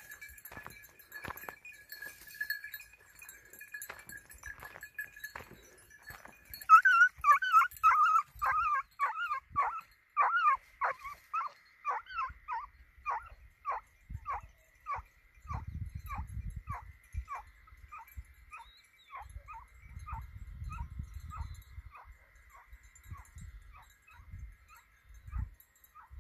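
Hunting dog giving tongue in a long run of short, falling yelps, about three a second at first, loudest about seven seconds in, then fading and spacing out as it draws away: a hound working a hare's line during training.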